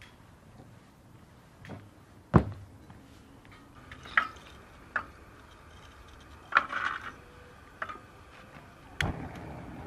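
Hard charcoal sticks knocked together and set down one by one on a metal fire grate, giving sharp clinks and knocks, with one loud thud about two seconds in. Near the end a steady rushing noise starts.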